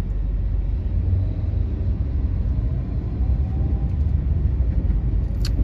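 Steady low rumble of a car driving in traffic, heard from inside the cabin, with one sharp click near the end.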